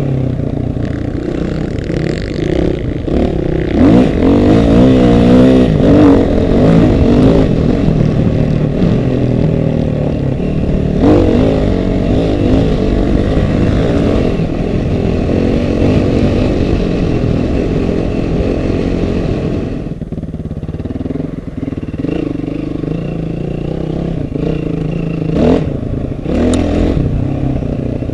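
Off-road vehicle engines running and revving, their pitch rising and falling a few seconds in.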